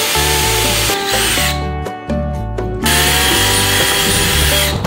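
Cordless drill drilling out the rivets that hold a light housing in an Airstream's aluminium skin. It runs in two goes: the first stops about a second and a half in, the second starts about three seconds in and stops just before the end. Background music with a steady stepping bass line plays over it.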